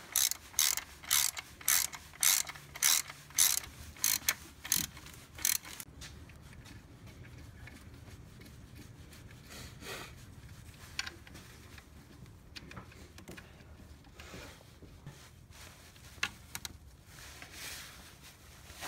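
Hand ratchet wrench worked back and forth to tighten a bolt: a run of clicking bursts about twice a second for the first six seconds, then a few quieter, scattered clicks.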